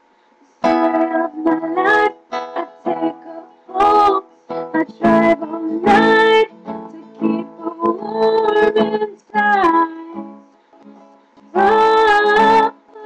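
A woman singing with an acoustic guitar accompanying her, starting after a brief silence at the very beginning. The sung phrases come in separate lines with short breaks between them.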